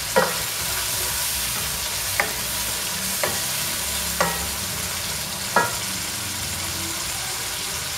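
Chicken liver in tomato paste sizzling in a kadai (wok) as it is stirred with a spatula. The spatula clicks against the pan about five times.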